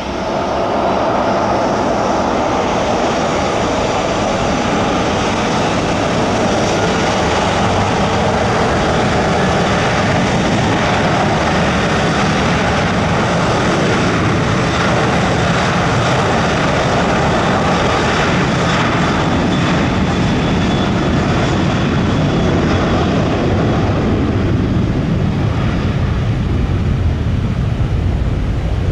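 An airliner's engines heard close by as it passes, loud throughout; near the end the higher part of the sound fades and a low rumble remains.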